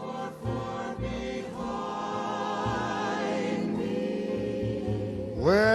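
Background music: a slow ballad's accompaniment holding sustained chords between sung lines, with soft low beats underneath.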